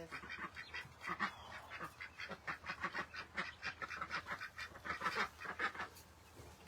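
Ducks quacking in a rapid run of short, repeated calls that die away about six seconds in.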